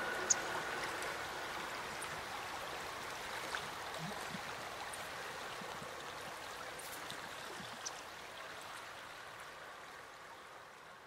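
Gentle flowing-water ambience, like a stream or river, fading out slowly.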